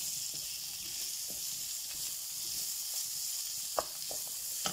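Fresh tomato wedges, onions and spices sizzling in hot oil in a non-stick frying pan, a steady hiss, with a single sharp knock about four seconds in.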